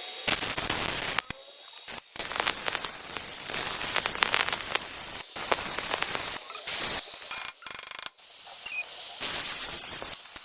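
Workshop tool noise: a run of crackling and sharp clicks with abrupt breaks between short stretches, and a brief fast rattling tick about three quarters of the way through.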